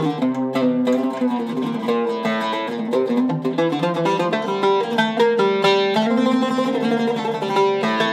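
Zeryab oud with a cedar soundboard, African rosewood back and Pyramid strings, played solo with a plectrum: a melodic run of quick plucked notes.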